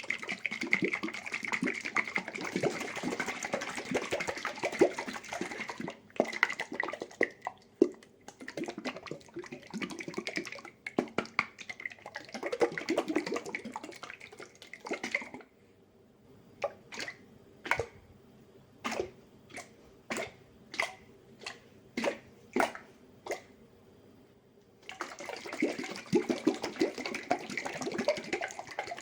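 Glass jar of tomato sauce shaken by hand, the thick sauce sloshing inside. Fast continuous shaking for about the first fifteen seconds, then a run of about a dozen single shakes roughly two a second, then fast continuous shaking again near the end.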